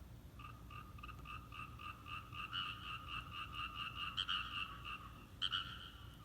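Frogs calling in a paddy: a rapid, even run of croaks, about four a second, growing louder. The run breaks off near the end with a couple of sharper croaks.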